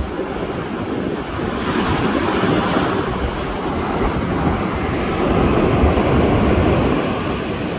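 Heavy ocean surf breaking and washing in, with wind buffeting the microphone. The wash grows louder about a second and a half in and peaks again around five to six and a half seconds in.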